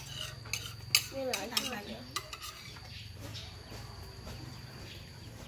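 Metal spoon clinking against a dish a few times, over a low steady hum.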